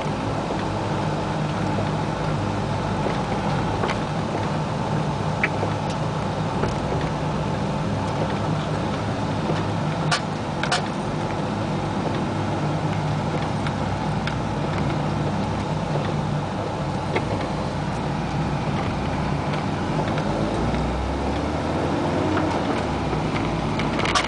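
Cabin sound of a 1988 Isuzu Trooper driving on wet pavement: a steady engine hum with road and tyre noise. A couple of sharp clicks come about ten seconds in, and the engine note rises a little near the end.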